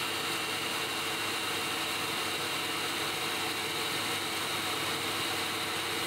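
Tool grinder running steadily while a single-point cutter is ground: an even hum with a hiss, unchanging throughout.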